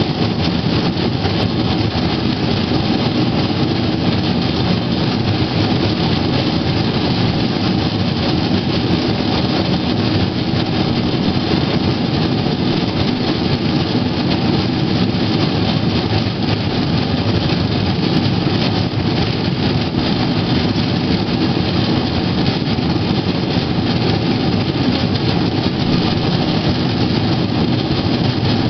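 Steady rolling rumble of a pedal rail bike's wheels running along old, rusty railway track at an even speed.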